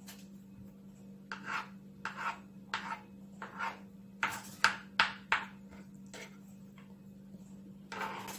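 Knife cutting avocado on a plastic cutting board: about a dozen short, irregular cuts and scrapes, loudest about four and five seconds in.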